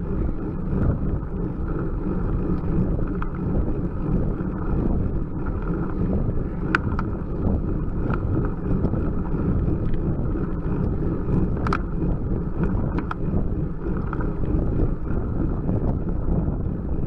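Steady wind rumble on a bicycle-mounted camera's microphone as a road bike climbs slowly, with a few sharp ticks, two of them standing out about seven and twelve seconds in.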